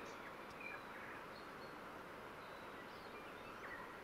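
Faint outdoor bush ambience: a steady low hiss with a few brief, high bird chirps scattered through it.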